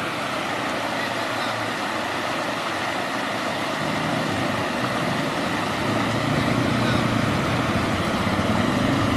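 ATV engine running during a ride over a steady wash of noise, its hum growing stronger and louder in the second half.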